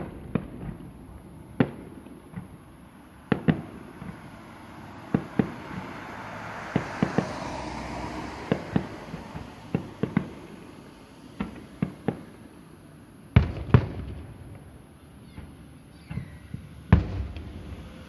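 Fireworks display: aerial shells bursting in a string of irregular sharp bangs, with two of the loudest close together past the middle. A hissing wash swells and fades between the bangs about halfway through.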